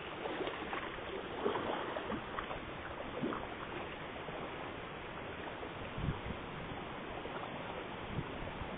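Common carp crowding a pond's surface, splashing and slapping the water in quick irregular bursts during the first few seconds, over a steady background hiss. Two low thuds come later.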